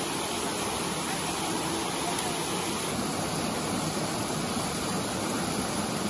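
Steady rush of creek water tumbling over rocks in small cascades.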